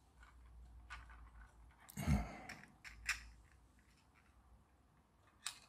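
3D-printed plastic motor parts being handled and fitted together: a few separate plastic clicks and taps, the loudest a dull knock about two seconds in, then a sharp click a second later and another near the end.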